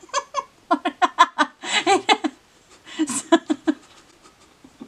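Laughter: quick breathy voiced pulses in three fits, the last ending a little before four seconds in.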